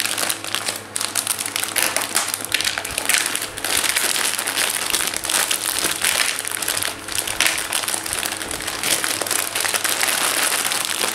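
Plastic pasta bag crinkling and rustling while dry fusilli are fished out of it by hand.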